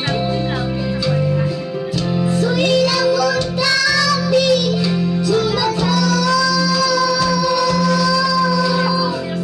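A young girl singing into a microphone over a karaoke backing track, amplified through a portable karaoke speaker. In the second half she holds one long note.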